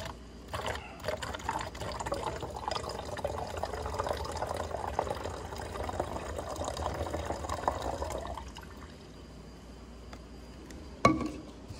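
Cold water being poured into a plastic 2-liter soda bottle partly filled with vinegar, a steady pouring and filling that stops about eight and a half seconds in. A single sharp knock comes near the end.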